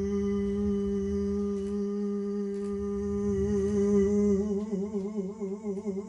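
Harmonica holding one long low note, which breaks into a wavering vibrato about four seconds in, as the closing note of a song.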